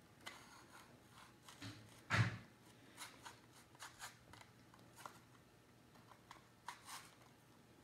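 Kitchen knife cutting into a large apple held in the hand: faint, scattered short scrapes and snicks of the blade through the skin and flesh, with one louder bump about two seconds in.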